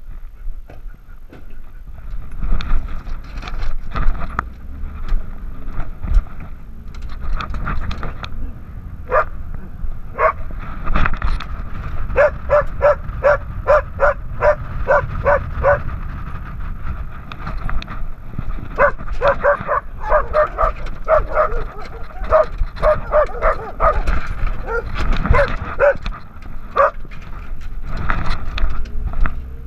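A dog barking over and over close to the microphone, in long runs of about three barks a second, over a steady low rumble.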